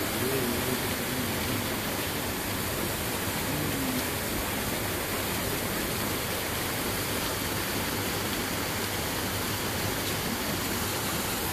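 Steady, even rushing noise, with faint voices briefly near the start and about four seconds in.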